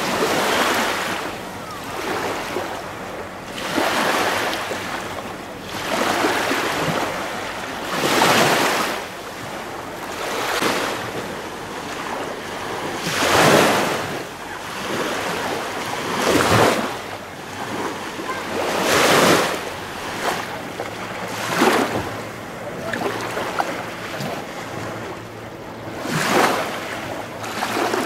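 Small waves lapping at the water's edge, swelling and easing every two to three seconds, with wind on the microphone.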